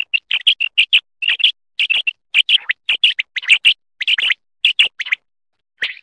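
Quail calling over and over: short, sharp, high-pitched notes in quick pairs and threes, about four a second, with a brief pause about five seconds in.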